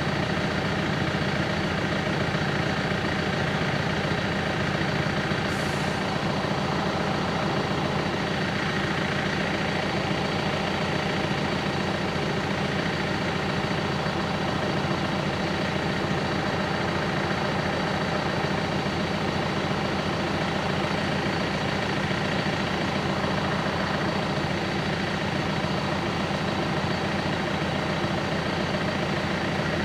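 Level crossing warning bell ringing continuously with rapid, even strokes, at a steady level throughout: the crossing is closed and a train is due.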